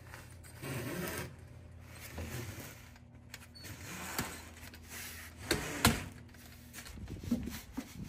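Rubbing and scraping of an insulated refrigerant line set being worked by hand into a plastic line-set channel on a wall, with a sharp knock just before six seconds in. A steady low hum runs underneath and stops about seven seconds in.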